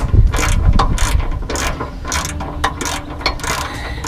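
Ratchet wrench clicking in repeated short strokes as it is worked back and forth on the oil drain plug of a 1994 Ford Bronco, loosening the plug to drain the oil.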